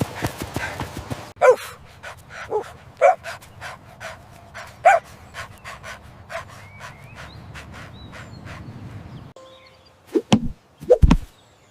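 Dog panting in a run of quick breaths, with a few short barks; the loudest barks come near the end.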